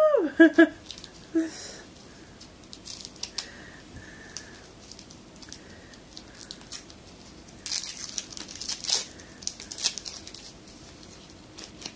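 Gift packaging crinkling and rustling as an item is handled and unwrapped, in scattered short crackles with a busier spell about two-thirds of the way through.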